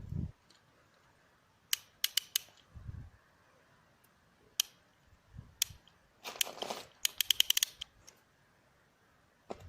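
Plastic clicking from a Lego rubber band pistol's mechanism: scattered single sharp clicks with a few dull thumps, then a rattling patch and a quick run of about ten clicks in under a second.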